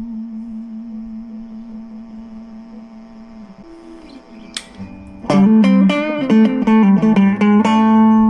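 Cort CR50 electric guitar played through a Cort MX15R amp: a held note with vibrato rings and fades away, then about five seconds in a quick run of picked single notes ends on a long sustained note.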